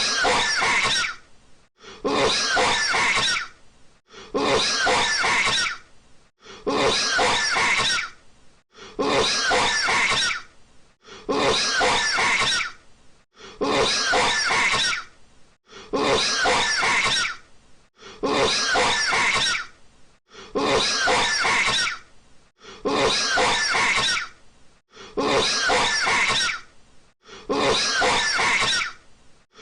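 A man's harsh coughing fit, one short clip looped over and over: each burst of coughs lasts about a second and a half and the same burst returns every two and a bit seconds, about thirteen times.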